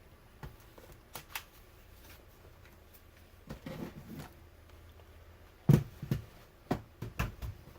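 ThinkPad laptops being handled and set down on a table: scattered light clicks, then a few louder knocks, the loudest just before six seconds in and a small cluster about a second later, over quiet room tone.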